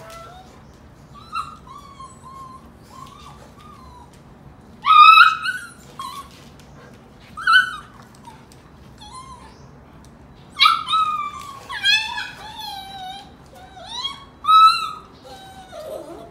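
Golden retriever puppy yelping and whimpering while its mother wrestles and mouths it. A run of high-pitched, wavering cries, faint at first, loud about five seconds in, then a burst of yelps from about ten to fifteen seconds in.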